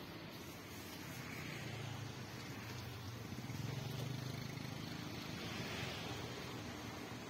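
Low, steady engine hum of motor traffic, swelling about halfway through as a vehicle passes, over faint street ambience.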